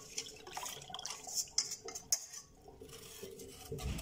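Wire whisk and stainless steel mixing bowl clinking against a metal pan as a cornstarch slurry is poured in and stirred, with a few sharp clinks about one and a half to two seconds in.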